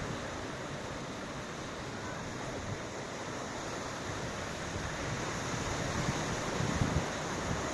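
Ocean surf: a steady wash of breaking waves, with wind. It swells a little louder about six seconds in, with low rumbling gusts.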